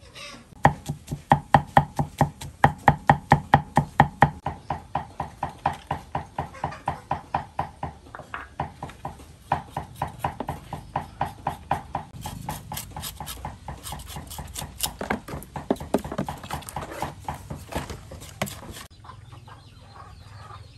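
A knife striking in a rapid, even rhythm, about five strokes a second, chopping or scraping food. From about twelve seconds in the strokes turn sharper and brighter, and they stop shortly before the end.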